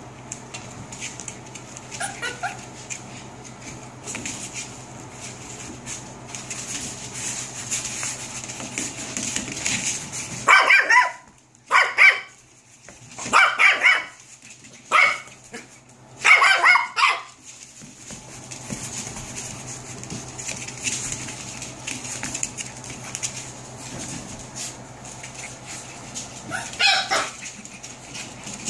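Seven-week-old puppy barking: a run of about five short, high-pitched barks in the middle, with a single bark near the end.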